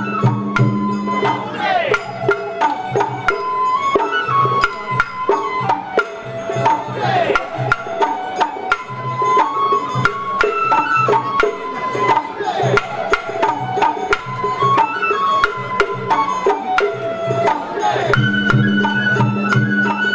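Japanese festival float hayashi: a high bamboo flute plays a stepping melody over a busy, steady pattern of drum beats, with a falling slide about every five seconds.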